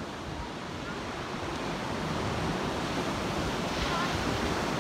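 Surf breaking and washing up a sandy beach: a steady rushing wash that grows gradually louder, with wind buffeting the microphone.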